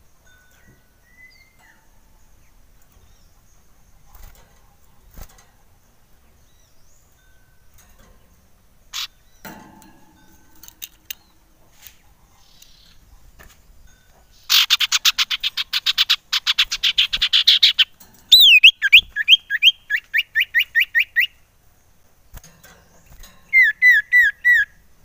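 Common iora singing, loud and close. After a few faint chirps it gives a fast rattling trill of about three seconds, then a run of quick falling whistled notes at about four a second, and after a pause four more falling notes near the end.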